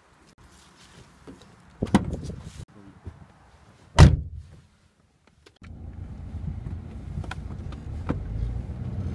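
A car door is opened and then slammed shut with a sharp thud about four seconds in. About a second and a half later the car's engine starts and runs steadily, heard from inside the cabin.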